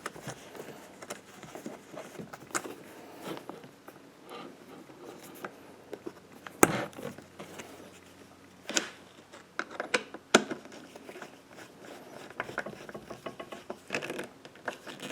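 Irregular small clicks, taps and scrapes of hands working on the mini lathe's wiring and fittings, with a sharp knock about six and a half seconds in and louder clicks near nine and ten seconds.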